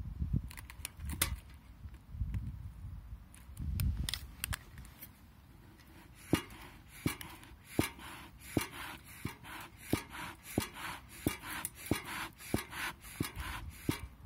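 Bee smoker's bellows being pumped, about one and a half puffs a second from about six seconds in, each a click with a short rush of air, fanning the paper and wood-chip fuel into flame. Before that, scattered clicks and knocks of the fuel being packed into the canister.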